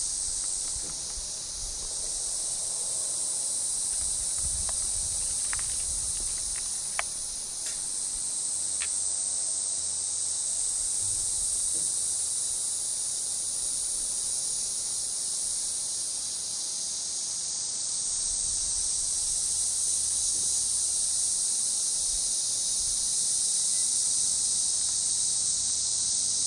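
Steady chorus of insects: a high, even buzz that does not let up.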